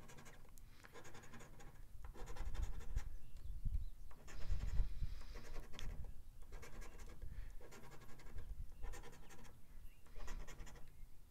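A scratch-off lottery ticket's coating being scratched away in short runs of quick rubbing strokes, with brief pauses between runs.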